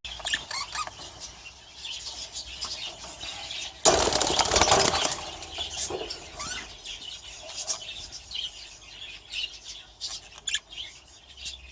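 Budgerigars chirping and chattering throughout, with a loud burst of wing flapping about four seconds in that lasts just over a second.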